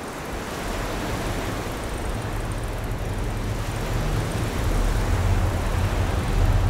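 A rumbling whoosh, a film sound effect, comes in suddenly and swells steadily louder, with a deep rumble building underneath.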